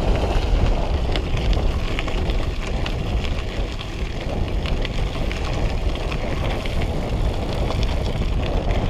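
Wind rushing over the microphone while a loaded bikepacking bicycle is ridden, with a steady low rumble and scattered light clicks and rattles.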